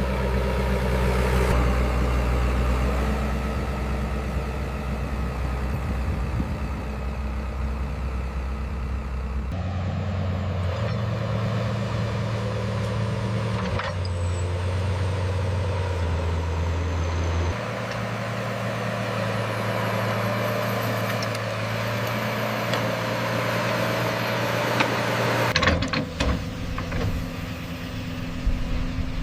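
Heavy construction machinery's diesel engines running steadily, the engine note changing abruptly three times. A few sharp knocks near the end.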